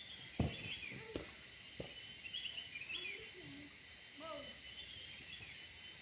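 Small birds chirping in short high phrases, repeated several times, with a few sharp knocks in the first two seconds and some lower pitched calls a little past the middle.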